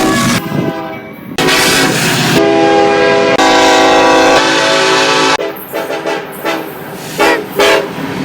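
Locomotive air horn sounding a multi-note chord in several blasts: a short one at the start, a long one of about four seconds, then shorter blasts near the end, with the noise of the train running beneath.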